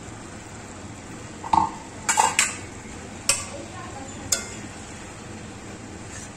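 A metal spatula stirring paneer and peas curry in a metal kadai, knocking and scraping against the pan. There are several sharp clinks with a short ring: one, then a quick cluster of three, then two more about a second apart.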